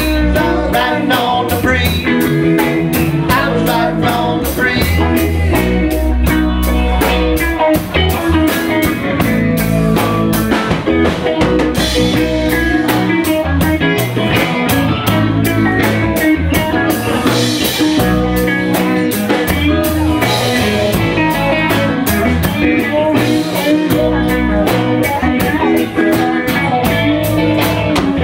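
Live rock band playing an instrumental stretch: electric guitar over a drum kit, with steady cymbal strokes keeping the beat.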